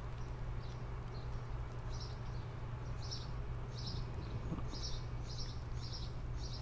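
A small bird chirping over and over in short chirps, about two a second in the second half, over a steady low hum.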